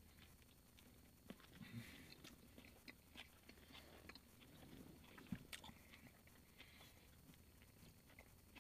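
Faint, soft chewing of a mouthful of condiment-laden hot dog in a bun, with scattered small wet clicks.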